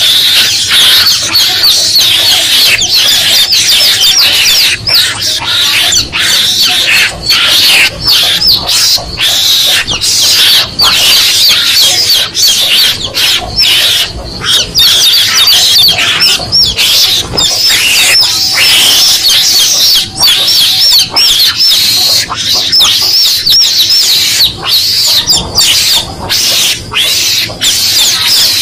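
Mongoose lure recording: loud, rapid, high-pitched peeping of chicks, mixed with mongoose calls, playing without a break.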